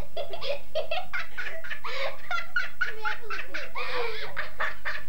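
A young girl laughing hard, a rapid run of high-pitched laughs.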